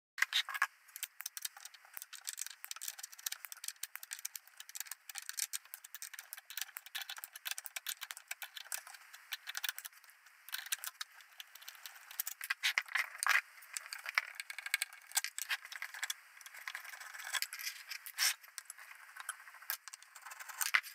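A screwdriver working screws out of a sheet-metal electronics chassis to free a module: a steady run of irregular metallic clicks, scrapes and rattles.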